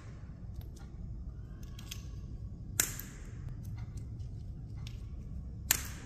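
Small pieces of cut mirror glass clicking and clinking as they are handled and pressed into the wall mosaic. There are two sharp, glassy clicks about three seconds apart, among lighter ticks.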